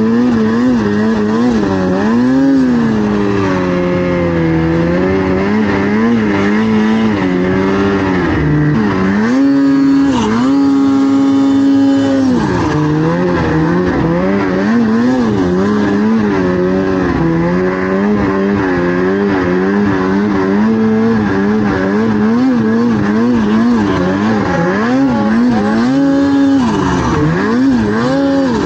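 Snowmobile engine running under constantly changing throttle, its pitch rising and falling again and again, with a stretch held at higher, steady revs about ten seconds in.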